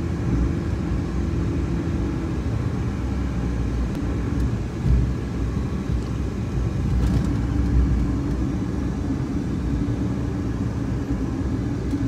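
Car driving along a road: a steady low rumble of engine and tyres, with a faint steady hum that fades about two seconds in and comes back in the second half.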